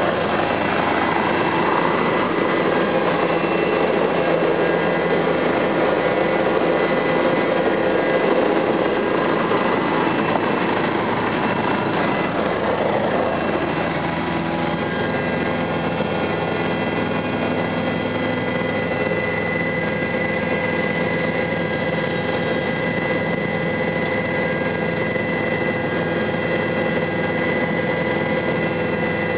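Helicopter turbine engine and rotor running steadily, with several steady whining tones over a dense rushing noise; the rougher part of the noise eases about fourteen seconds in.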